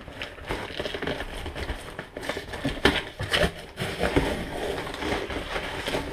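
Cardboard box being handled and opened by hand: irregular scraping, rustling and light knocks of cardboard.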